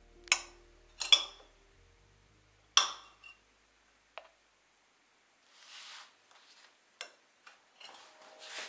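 Metal teaspoons clinking against a glass honey jar and ceramic bowls: a series of sharp clinks, the loudest three in the first three seconds, with a soft scrape about six seconds in and more small clinks near the end.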